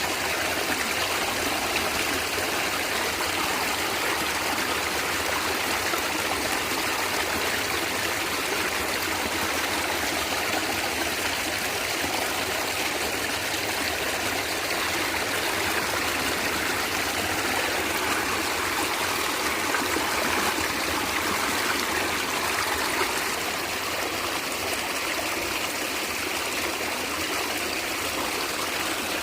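Small stream of water running and gurgling steadily over stones.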